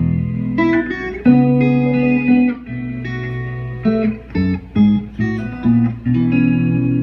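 Guitar music: sustained chords with low notes underneath. About four seconds in, they break into a few short, separately plucked notes, then settle back into held chords near the end.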